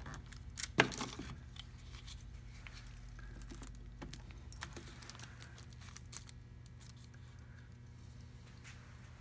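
Spring clamps being handled and clamped along a wooden keel while its glue sets: scattered clicks and clatter with one sharp snap about a second in, over a steady low hum.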